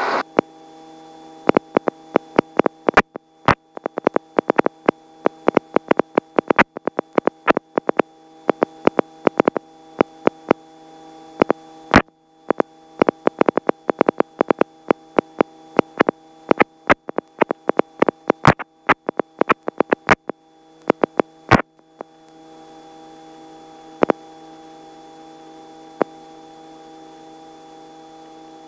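Helicopter headset intercom audio: a steady electrical hum with a dense, irregular run of sharp crackling clicks that stops about two-thirds of the way through, leaving the hum with two more single clicks.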